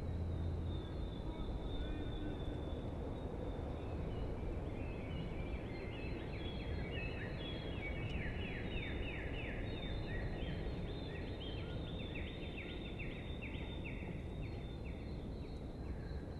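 Outdoor ambience: steady background noise with a bird calling, first a thin high note, then through the middle a rapid series of chirps, about three a second.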